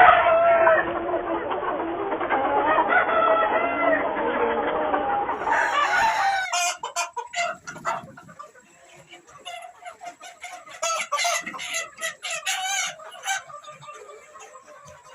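A large flock of chickens, cocks among them, clucking and calling over one another. About six seconds in, the sound cuts abruptly to a quieter stretch with scattered clucks and sharp clicks.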